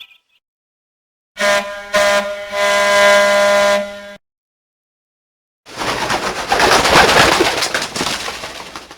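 Two short LG F2100 mobile phone ringtones played back one after the other. The first is a held, buzzy chord of steady tones lasting under three seconds, with a brief dip near its start. After a pause of about a second and a half, the second is a noisy hissing sound that fades out over about three seconds.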